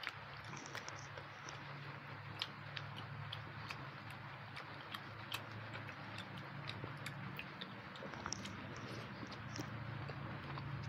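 Close-miked eating sounds of rice being eaten by hand: scattered small chewing and lip-smack clicks over a steady low hum.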